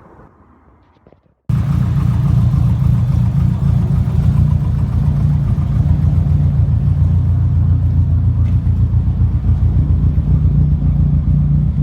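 Car engine and exhaust droning at steady revs, cutting in suddenly about a second and a half in.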